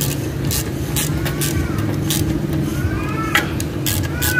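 A vehicle engine running steadily, with sharp clicks scattered through and a few short, high rising-and-falling calls, around three seconds in and near the end.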